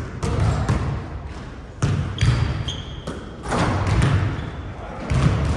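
Basketball bouncing on a hardwood gym floor: heavy thuds about every second and a half, echoing in the hall, with a couple of short high squeaks a little over two seconds in.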